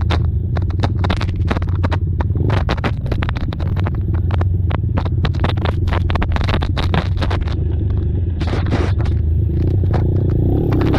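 ATV engines running under a heavy steady low rumble, with many sharp crackling knocks throughout and an engine revving up near the end.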